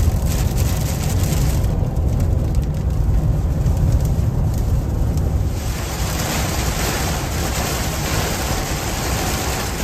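Steady road and engine rumble heard from inside a pickup truck's cabin at highway speed. About halfway through, heavy rain starts hitting the windshield and roof, adding a dense hiss that continues.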